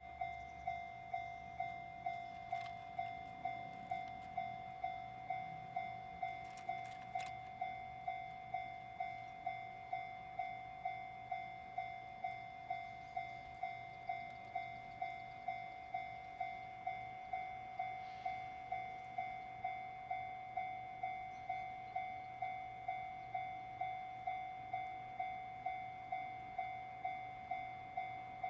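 Japanese railway level-crossing alarm switching on and ringing, an electronic bell striking a single steady tone about twice a second, the warning that a train is approaching.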